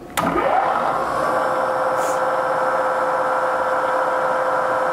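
Vertical milling machine's spindle motor switched on with a click, winding up over about a second, then running at a steady hum. The spindle with its end mill is turning to the left, the wrong direction for cutting.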